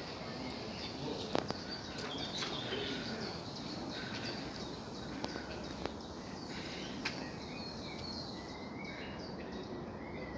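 Steady background noise with faint, scattered bird chirps and a few sharp clicks.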